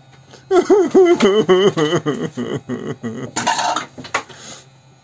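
A person laughing in a run of quick, pitched pulses for about three seconds, ending in a short breathy burst.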